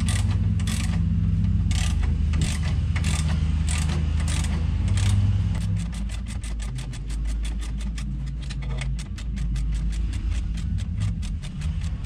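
Ratchet wrench clicking as it turns the bolt of a bushing puller, drawing a subframe bushing out of its bore. The clicks come about twice a second at first, then a quicker run of clicks from about halfway on, over a steady low hum.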